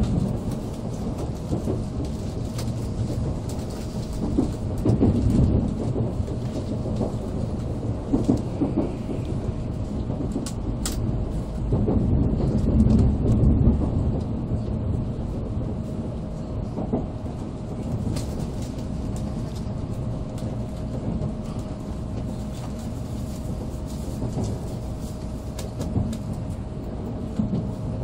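Cabin noise inside an N700A Shinkansen train under way: a steady low rumble from the wheels and running gear, with a faint constant hum. The rumble swells louder about five seconds in and again around thirteen seconds.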